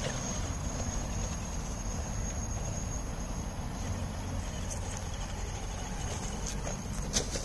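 A 1/10-scale RC rock crawler creeping over a boulder, its motor and drivetrain faint under a steady high insect trill and a low rumble. A sharp click or two near the end.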